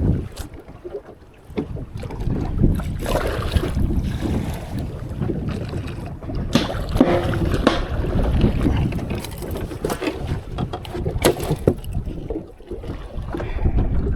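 Strong wind buffeting the microphone and water washing against a small fishing boat's hull, an uneven rushing sound, with a few sharp knocks and clicks midway through.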